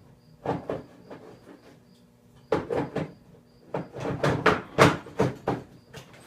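Irregular knocks, clunks and rattles of objects being handled and set down, in short clusters with the busiest run in the second half.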